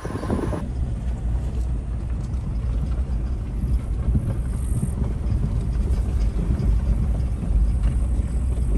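Steady low rumble of a 2020 Toyota 4Runner's 4.0-litre V6 and its tyres as the SUV rolls slowly along a rough gravel track. The sound changes abruptly about half a second in.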